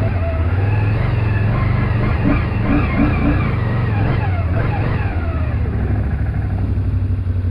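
ATV engine running hard, its pitch rising and falling as it revs during the first half, then holding steadier.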